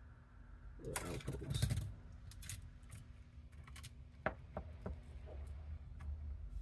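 Handling noise on a workbench as hands move tools and a solder spool during circuit-board soldering: a short rustle and clatter about a second in, then a few scattered light clicks and taps.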